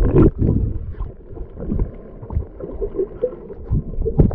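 Muffled underwater sound picked up by a camera held beneath the sea surface: a low churning rumble and gurgle of moving water. It has a louder splash-like knock at the start and another near the end.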